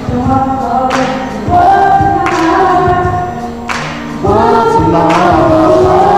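Young male R&B singer singing into a microphone, holding long, bending notes over a backing track with a slow beat.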